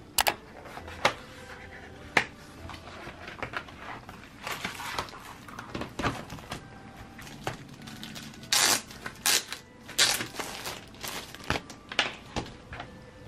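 Cardboard box and clear plastic sleeve of a tablet folio case being handled: scattered sharp clicks and taps of cardboard, with bursts of plastic crinkling about halfway through and again toward the end.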